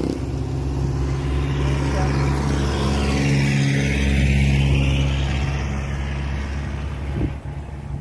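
A motor vehicle driving past on the road: a steady engine hum with tyre noise that grows to its loudest a little past the middle, then fades away.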